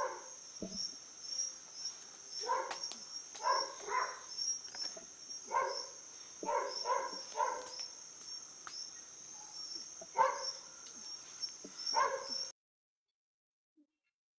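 A dog barking in short bursts, often two or three at a time, over steady chirping of night insects. Both cut off suddenly about twelve seconds in.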